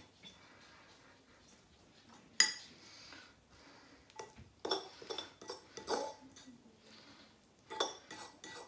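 A metal fork stirring spicy instant ramen noodles and their seasoning paste in a bowl, clinking against the bowl at irregular moments. The sharpest clink comes about two and a half seconds in, with a cluster more from about four and a half to six seconds and another near the end.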